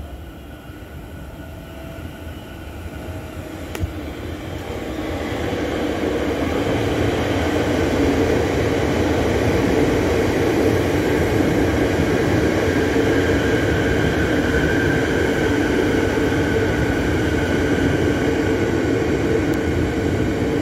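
Metro Trains Melbourne suburban electric train approaching and running past on the adjacent track. It grows louder over the first six seconds or so, then holds a steady rumble of wheels on rails with a faint high whine.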